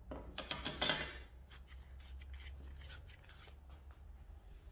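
Clicks and rattling from something being handled close to the microphone: a quick run of sharp clicks for about a second, then a few faint ticks.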